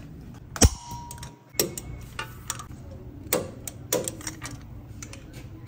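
Torque wrench working a suspension bolt: a run of sharp metallic clicks and ratchet ticks, the loudest about half a second in, followed by a brief ring.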